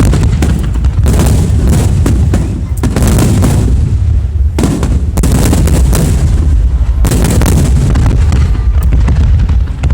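Aerial fireworks shells bursting one after another with heavy low booms and dense crackling, loud, in waves that come about every two seconds.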